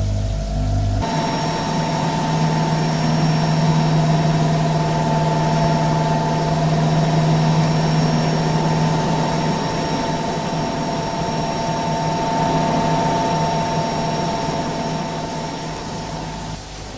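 Electric cooling appliance running steadily: a low hum with higher steady whining tones over a rush of air. It cuts in suddenly about a second in and cuts off suddenly near the end.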